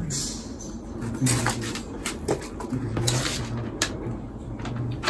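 Cardboard box and flat furniture panels being handled: scattered rustles, scrapes and light knocks as boards and papers are moved about inside the box.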